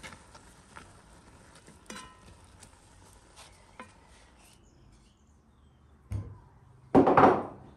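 A wooden spatula stirring grated apple and sugar in a pot, with faint scrapes and clinks. About six seconds in comes a knock, then a second later a louder clatter of dishes, the loudest sound.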